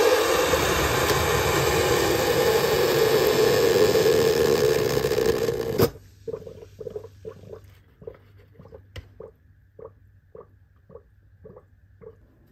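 Breville hot water dispenser running, its pump humming as a stream of hot water pours into a mug, stopping abruptly with a click about six seconds in. Faint intermittent drips from the spout follow.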